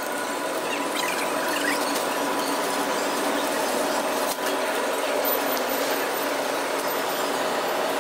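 Shopping cart rolling over a store floor, its wheels and wire basket rattling and squealing, over a steady hum.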